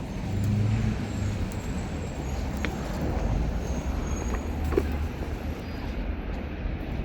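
City street traffic: motor vehicle engines running and passing, with a steady low engine hum under the road noise.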